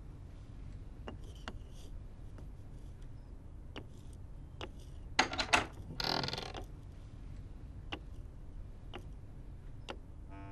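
Scattered light clicks and knocks of handling and movement in a room, with a few quick knocks about five seconds in and a short scrape just after.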